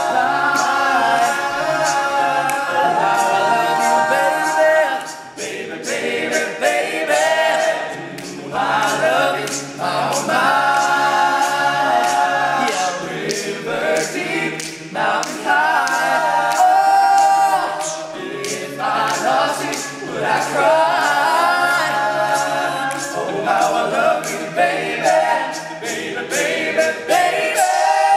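All-male a cappella group singing, several voices together with no instruments.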